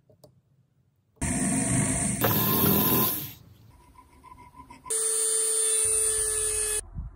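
A jeweller's rotary tool spinning a rubber polishing wheel against a silver diamond ring: a steady high whine lasting about two seconds that starts abruptly past the middle and cuts off near the end. Earlier, about a second in, a loud harsh noise runs for about two seconds.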